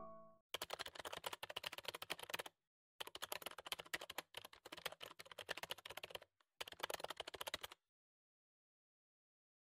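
Keyboard typing sound effect: rapid key clicks in four runs with short pauses between them, stopping about 8 seconds in.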